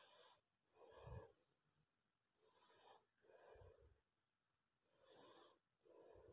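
Near silence, with faint soft breath-like puffs every second or so.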